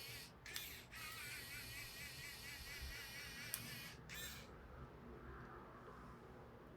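3D pen's small geared feed motor whirring as it pushes PLA filament through to extrude. It cuts out twice briefly, then stops about four and a half seconds in.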